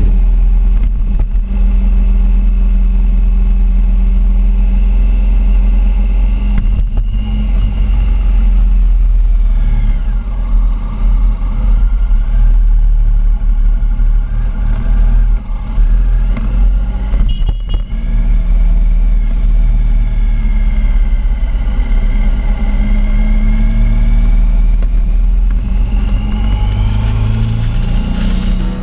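Triumph Sprint ST 1050's three-cylinder engine running under way, with a heavy low rumble underneath. Its pitch rises and falls several times as the rider works the throttle through town.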